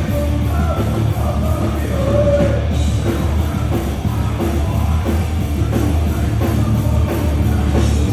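Hardcore metal band playing live at full volume, with a dense, heavy low end throughout.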